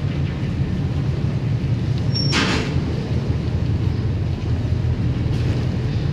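Steady low drone of the ferry's engines, heard on board while the ferry is under way, with a brief hiss about two seconds in.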